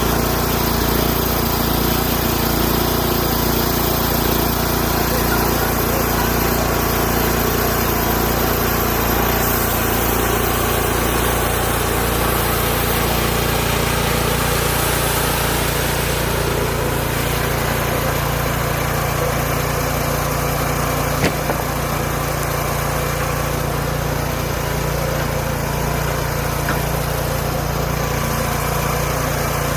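Engine of a portable bandsaw sawmill running steadily, with one sharp click about two-thirds of the way through.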